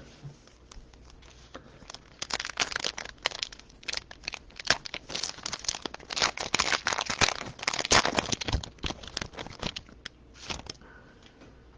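A basketball card pack's wrapper crinkling and tearing open: a dense run of crackles lasting several seconds.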